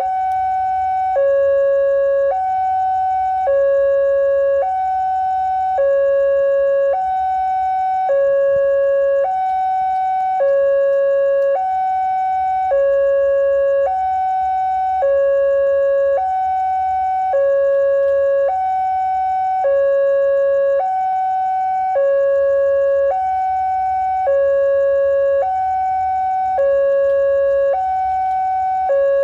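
Railway electronic two-tone warning alarm, alternating evenly between a higher and a lower tone about once a second each, steady and loud, signalling an approaching train.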